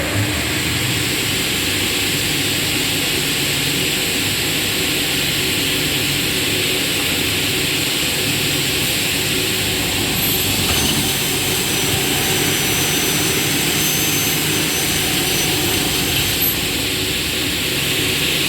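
Double-head aluminium cutting saw running after start-up: a steady loud rushing whine from its saw motors, with a thin high-pitched tone joining from about ten seconds in until about sixteen seconds.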